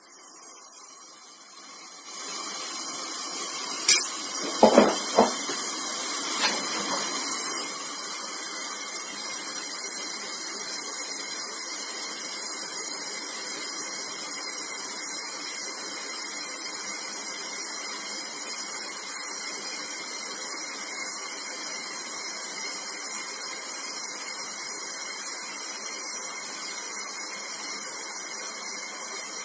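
Oxy-fuel brazing torch flame hissing steadily while it heats a copper pipe joint on an air conditioner's four-way reversing valve to melt the braze and free the pipe. A few sharp pops come about four to six seconds in, after which the hiss holds even.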